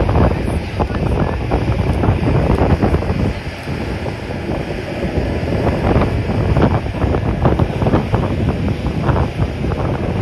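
Strong wind buffeting the microphone: a loud, uneven low rumble that swells and drops in gusts.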